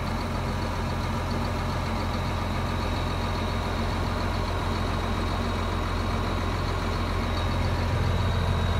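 Vehicle engine idling steadily with a low hum and a thin, steady high whine, growing a little louder near the end.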